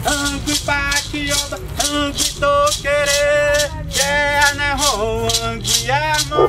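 A man singing an indigenous chant in his own language, with long held and gliding notes, over a maraca shaken in a steady beat of about two to three strokes a second.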